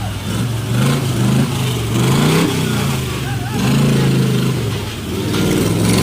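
Toyota FJ40 Land Cruiser engine revving, its pitch climbing and dropping several times as the throttle is worked.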